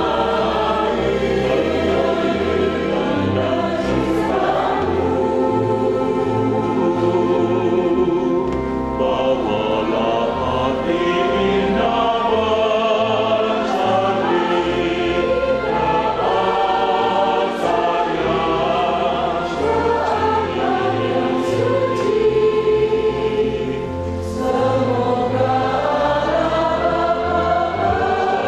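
Mixed church choir of men's and women's voices singing a hymn in parts, with a low bass line underneath.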